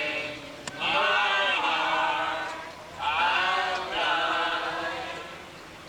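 Several voices singing together in two long phrases, the second fading away near the end.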